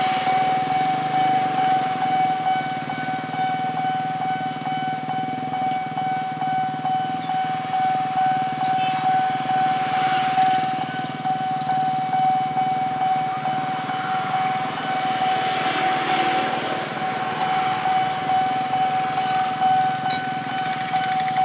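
Railway level-crossing warning alarm sounding one steady, unbroken tone, the signal that the barrier is down and a train is due. Motorcycle engines idle underneath, with louder swells of noise about ten and sixteen seconds in.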